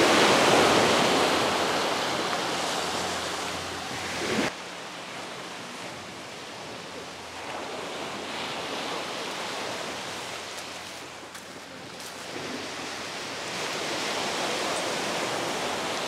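Waves breaking and washing up a pebble beach, the surf rising and falling in slow surges. The loudest surge is at the start; the sound drops off sharply about four and a half seconds in, then quieter swells follow.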